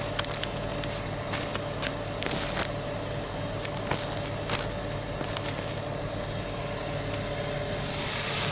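A turkey burger patty starts sizzling loudly near the end as it is laid into a hot frying pan on a butane burner. Before that come light scattered clicks and crinkles of the patty being peeled off its wrapper paper, over a steady low hum.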